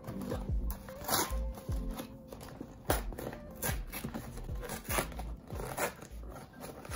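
Background music with a steady beat, over crinkling and rustling of a paperboard takeaway food box being handled and folded.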